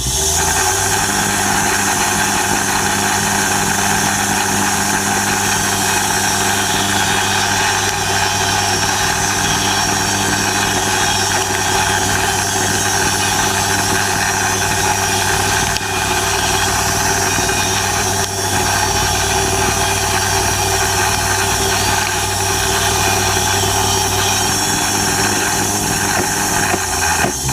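Sawmill engine running steadily at an even speed.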